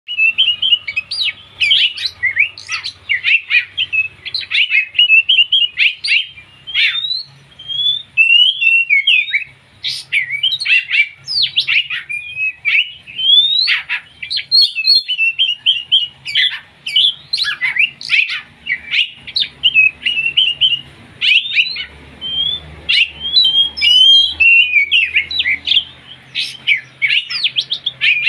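A five-month-old songbird of the kind Indonesian bird-keepers call pastol singing on and on: a fast, varied run of chirps and short whistled slurs, broken only by brief pauses.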